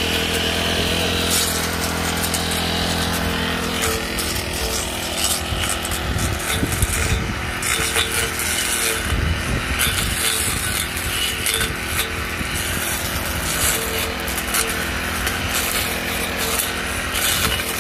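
Petrol brush cutter held at low throttle, its engine running steadily. From about four seconds in, the sharpened blade cuts through weeds with an irregular crackle over the engine.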